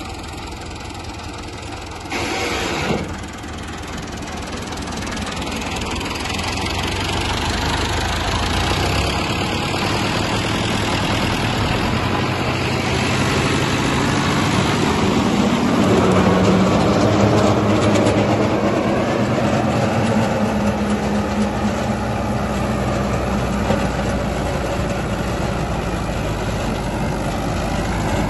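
Farm tractor's diesel engine running steadily under load while pulling a ridging implement through the soil, growing louder over the first half. A brief loud bump or rustle about two to three seconds in.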